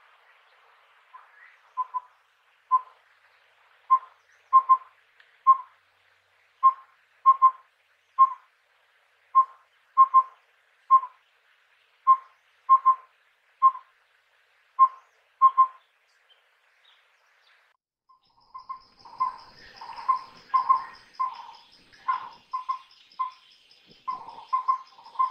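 Collared owlet calling: short, mellow whistled notes repeated in phrases of one, a quick pair, then one ('wüp, wüwü, wüp'). In the last seven seconds the notes come faster and louder over a steady high hum.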